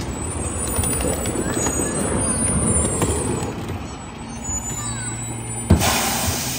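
Mack Granite rear-loader garbage truck running, with a steady low mechanical rumble from the engine and packer. Near the end comes a sharp bang, then a burst of hissing air.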